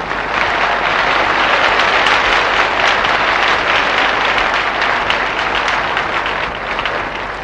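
Live concert audience applauding: a dense patter of many hands clapping that swells just after the start and tapers off near the end.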